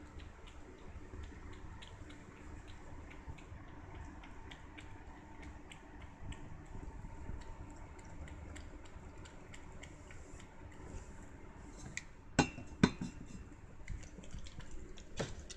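Quiet rustling and handling noise with a low rumble and faint ticks, then a few sharp clinks: two close together about twelve seconds in and one more near the end.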